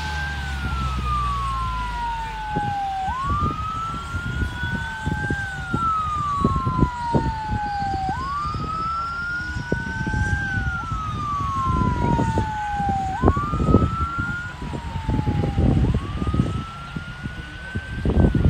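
Emergency vehicle siren wailing over and over, each cycle a quick rise in pitch and a slower fall, about every two and a half seconds. A low engine drone fades out in the first two seconds, and irregular low rumbles run underneath.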